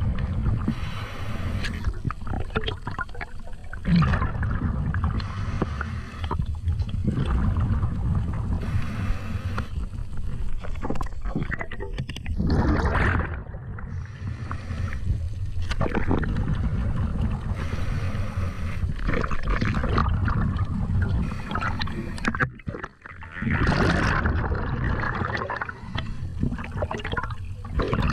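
Underwater water noise picked up by a camera in a waterproof housing on a speargun as it moves through the water: a steady low rumble with passages of louder rushing and gurgling, strongest about halfway through and again near the end.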